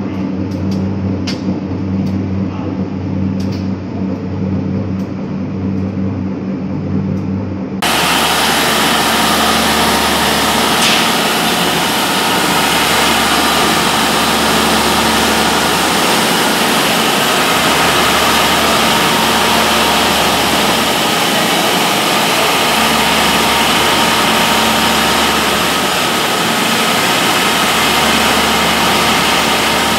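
Screw press of an animal-rendering plant running as a steady low hum with a few light clicks. About eight seconds in, a cut brings in a belt-driven decanter centrifuge spinning at about 4000 rpm to separate crude fat from meat-and-bone-meal sediment: a louder, steady, hissing machine noise with a constant hum underneath.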